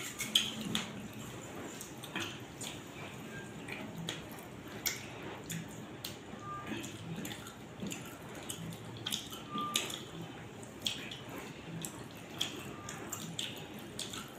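Wet eating sounds from hand-eating: fingers squishing gravy-soaked parota on a steel plate, with chewing, as a run of irregular soft clicks and squelches.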